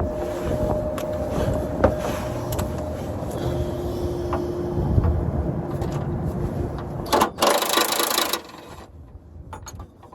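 Wind buffeting the microphone as a low rumble, with scattered clicks and knocks. About seven seconds in comes a loud hissing burst lasting just over a second, after which the rumble drops away.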